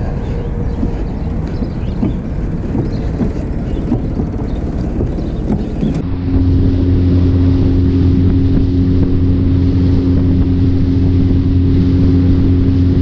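Wind buffeting the microphone for about six seconds, then a sudden change to a boat's outboard motor running at a steady cruising speed: a steady, even engine drone with the rush of the hull through the water.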